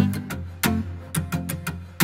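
Background music: an upbeat instrumental with a plucked bass line and regular sharp percussive hits.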